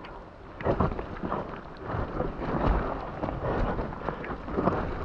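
Mountain bike riding fast down a wet, muddy forest trail: wind buffeting the on-board camera's microphone, tyres on wet ground, and the bike rattling and knocking over roots and bumps.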